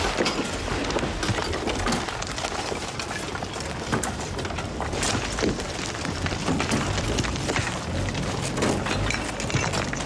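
Many overlapping knocks and clatters of bricks and rubble being shovelled and thrown, over a steady low rumble.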